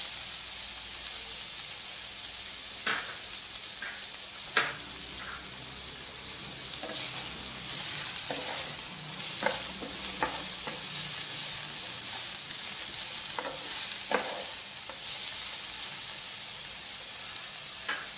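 Chopped green beans, onions and green chillies sizzling in hot oil in a non-stick pan, with a steady hiss. They are being stirred, with scattered short knocks of the utensil against the pan.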